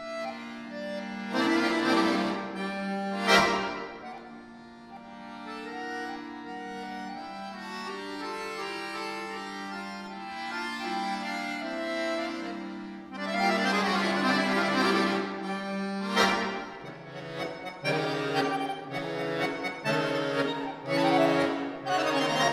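Solo concert accordion playing a contemporary classical piece: loud, dense chords with sharp accents, a soft passage of held chords, then loud clustered chords return about halfway through.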